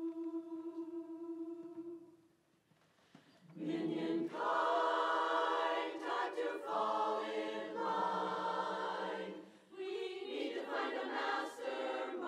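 A single steady pitch note is held, then after a short pause a women's barbershop chorus starts singing a cappella in close harmony about three and a half seconds in.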